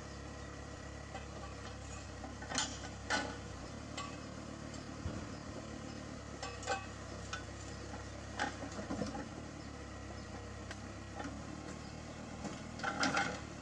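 An engine idling steadily, with scattered sharp metal clanks and knocks of work on heavy machinery, a quick cluster of them near the end.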